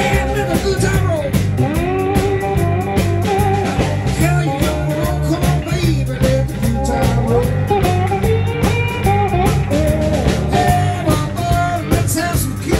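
Live blues band playing an instrumental passage: electric slide guitar with gliding, bending notes over a steady bass line and drums.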